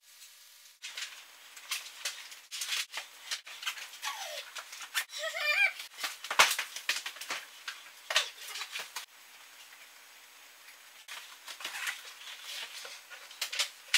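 Heavy books and papers being handled in a hurry: a rapid string of knocks and thuds as books are shoved and stacked, with pages rustling and flipping. A brief high, wavering squeak comes about five seconds in, and the sharpest knock just after it.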